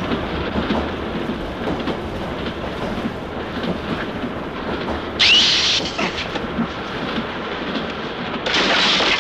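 Steady rumble of a train running, heard from inside a compartment. Two brief, louder rushes of noise cut through it, one about five seconds in with a short rising whine, and one near the end.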